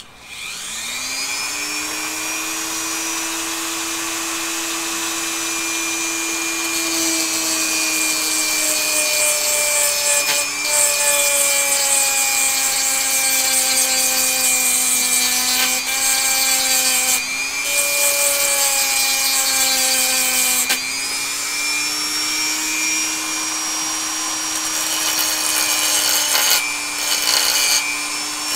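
Dremel MultiPro rotary tool spinning up, then running with a steady whine while its grinding stone grinds a small steel pin, a rough hiss over the motor. The whine sags in pitch when the stone is pressed in and picks up again in the short moments it is lifted off. The pin is being shortened because it is too long for the loading gate to close.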